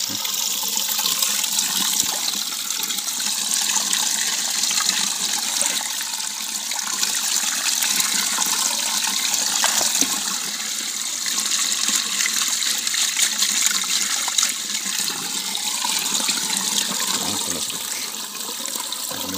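Water pouring steadily from an open half-pipe channel into a plastic barrel, splashing onto the water inside.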